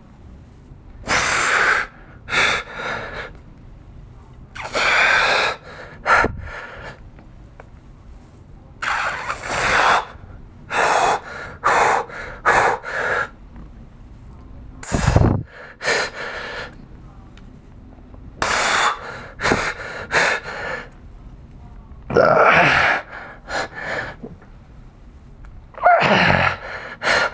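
A man breathing hard through a set of band-resisted squats: sharp, forceful exhales and gasps every second or two, turning into strained, voiced grunts near the end as he works toward muscle fatigue.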